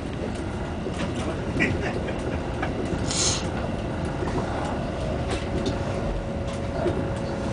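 Electric train running along the track, heard from inside the front car: a steady low rumble of wheels on rail with scattered clicks, and a short hiss about three seconds in.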